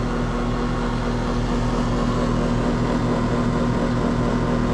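Outdoor heat pump unit running: a steady electrical hum with a fast low throb, about four pulses a second, over the rush of the fan. The unit is running in heating mode though the thermostat calls for cooling, with the vapor line at 152 degrees.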